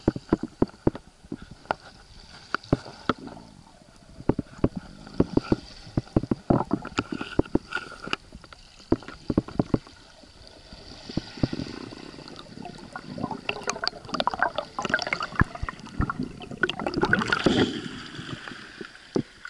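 Camera audio underwater: a string of sharp clicks and knocks, joined later by gurgling and sloshing water that builds up as the camera breaks the surface near the end.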